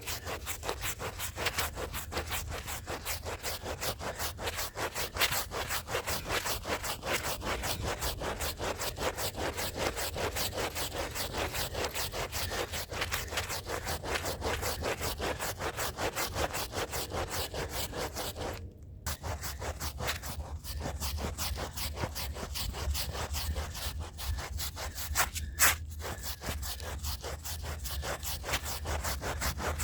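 Stiff hand brush scrubbing a rug's pile in rapid back-and-forth strokes. The strokes break off briefly about two-thirds of the way through, and a sharp click follows a few seconds later.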